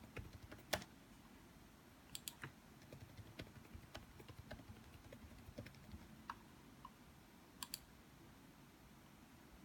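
Faint computer keyboard keystrokes and mouse clicks, scattered and irregular, with a few quick double clicks.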